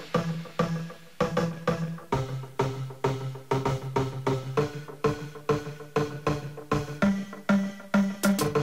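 Background music with a quick, steady beat of percussive, pitched notes.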